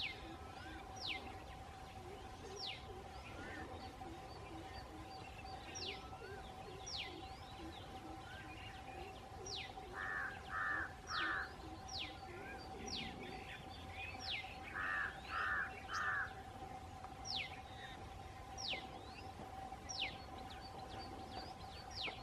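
Large grey babbler giving two runs of three quick calls, the loudest sounds here, amid a high whistle from a bird that slides down in pitch and repeats about every second and a half, over a steady hum.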